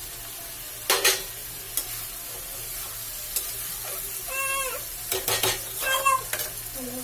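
Vegetables (mungre radish pods, potatoes, peas and freshly added chopped tomatoes) sizzling in oil in a kadhai, stirred with a spatula that clanks against the pan several times. The loudest clanks come about a second in and again a little after five seconds.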